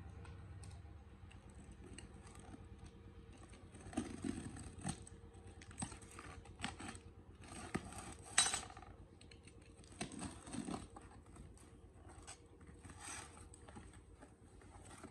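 Small metal parts and tools being handled, with irregular clinks, taps and short rattles; the loudest is a brief rattle about eight seconds in.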